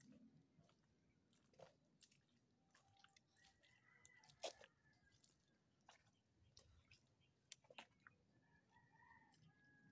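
Near silence, broken by faint scattered clicks and taps, the sharpest about four and a half seconds in, with a few faint high whistle-like notes.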